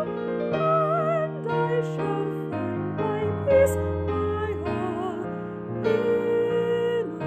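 A woman singing a hymn in a trained voice with vibrato, accompanied by chords on a digital stage piano. She holds a long note near the end.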